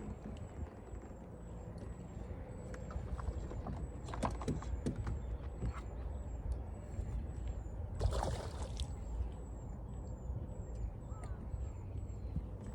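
Outdoor ambience with a steady low rumble, a short falling high-pitched chirp repeating about one and a half times a second, and scattered clicks and knocks, with a louder rustling noise about eight seconds in.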